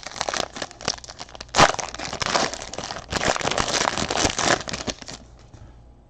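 Foil trading-card pack wrapper being torn open and crumpled: dense crinkling and crackling with a sharp loud crackle under two seconds in, stopping about five seconds in.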